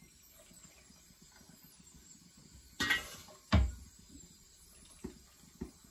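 Metal ladle knocking against a steel pot while boiling water is ladled out: two sharp clinks a little under a second apart about halfway through, then two fainter knocks near the end.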